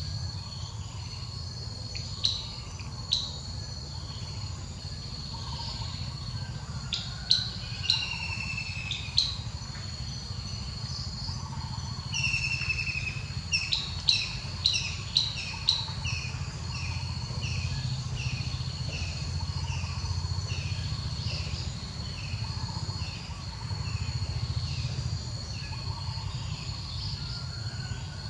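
Forest ambience: birds calling and chirping over a steady high-pitched insect drone, with a few sharp clicks near the middle and a run of short, evenly repeated bird notes through the second half. A low steady rumble sits underneath.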